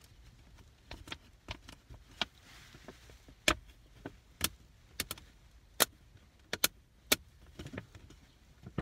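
Thin clear plastic blister-pack sheet crackling and clicking in irregular single snaps as it is handled and flexed, bent to test whether cured UV-resin drops stay stuck on it.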